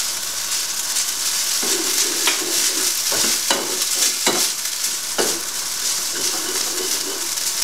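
Chicken and pak choi sizzling in oil in a hot frying pan while metal tongs keep turning them, with several sharp clacks of the tongs against the pan.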